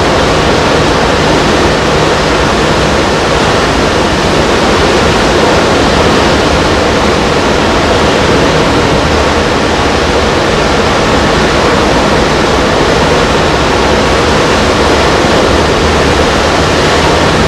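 Heavy surf breaking under hurricane wind: a loud, steady, unbroken roar of wind and waves.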